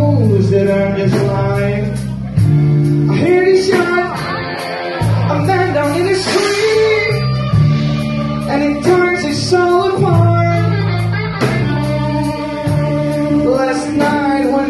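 Live band playing a song: a lead vocal sung over electric guitar and bass guitar, with a steady beat.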